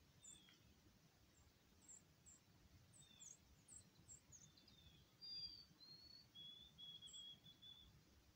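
Faint chirps and short slurred calls of small birds, scattered throughout, with a longer held note over the last two seconds.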